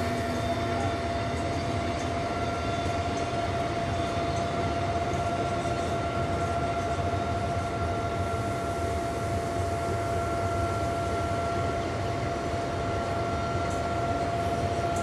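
TER train of VR2N double-deck coaches with an electric locomotive rolling slowly past, a steady rumble with a steady high whine over it.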